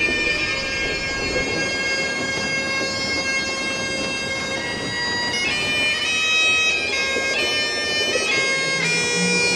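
Bagpipe music: a steady drone with the melody notes changing several times in the second half.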